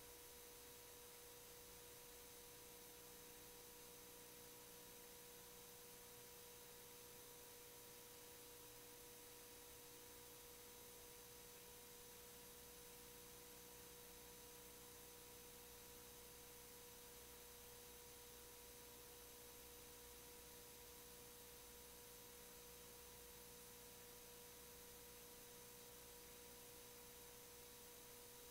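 Near silence: faint steady hiss with a thin, unchanging electronic tone from the idle audio feed.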